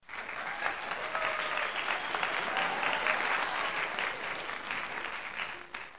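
A crowd applauding: many hands clapping together, tailing off near the end before it cuts off.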